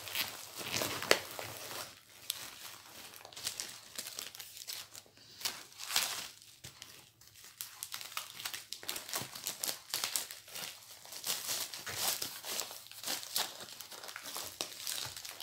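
Packaging of a diamond painting kit crinkling and rustling as it is handled, in irregular bursts with sharper crackles about a second in and about six seconds in.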